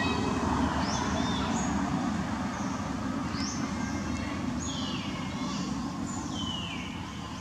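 Baby long-tailed macaque crying: a run of high-pitched squeals, each one sliding down in pitch, coming roughly once a second with short gaps, over a steady low background rumble.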